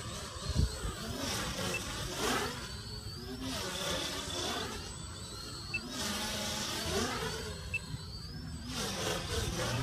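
Custom 450-size quadcopter's electric motors and propellers whirring, the pitch swelling and falling about every two seconds as the throttle changes through flips and rolls.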